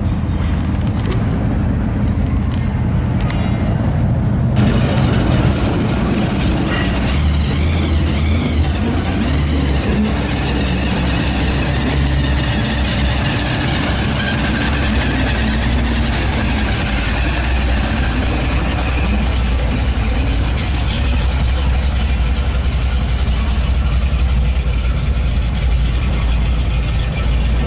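Supercharged V8 of a black late-1960s Dodge muscle car, its blower sticking through the hood, idling steadily and then pulling away slowly.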